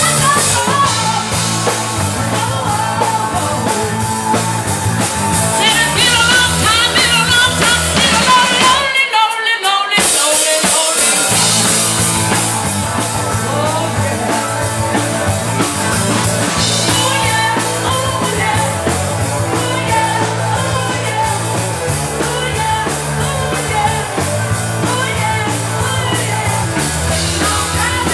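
Live rock band playing dance music: drum kit, bass and a singer. About nine seconds in, the bass and drums drop out for about a second before the band comes back in.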